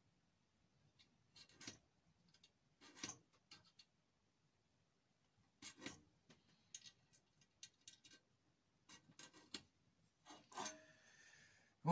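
Faint, scattered scrapes and clicks of metal parts and tools being handled on a wooden workbench.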